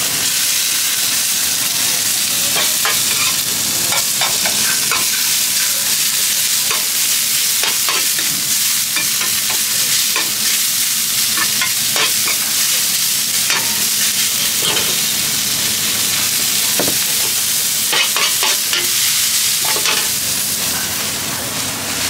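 Bean sprouts and greens sizzling in oil on a wide flat frying pan while being stir-fried. A metal spatula scrapes and clicks against the pan at irregular intervals over a steady sizzle.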